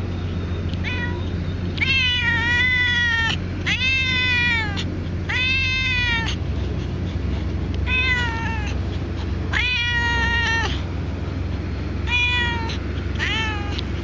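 A white-and-calico cat meowing again and again: about eight meows, some short and some long and drawn out, each rising then falling in pitch. It is asking the angler for more food, having just finished eating.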